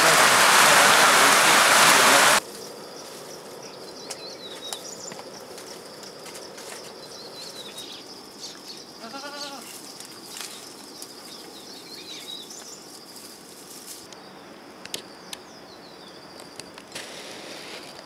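A goat bleats once, a short wavering call, about nine seconds in. Around it are a steady high whine and faint scattered chirps and clicks; the first two seconds are a loud hiss that cuts off abruptly.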